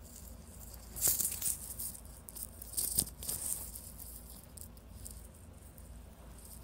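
Fabric rustling as a sweatshirt hood is pulled up and adjusted by hand, with two louder scratchy bursts, about a second in and about three seconds in.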